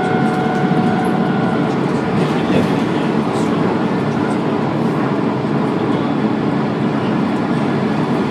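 Dennis Trident II double-decker bus heard from on board: loud, steady engine and running-gear rumble. A steady whine sits over the rumble for the first second and a half, then stops.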